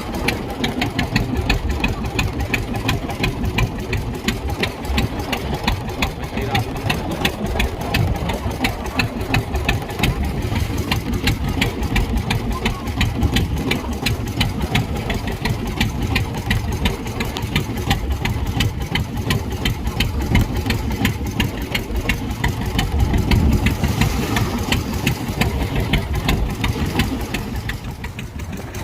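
Fishing boat's engine running steadily, with a rapid, even knocking beat.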